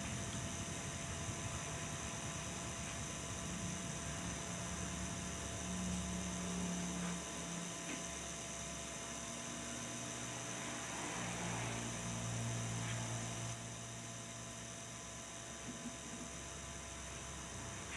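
Steady low background hum over a faint noise bed, with no distinct work sounds standing out.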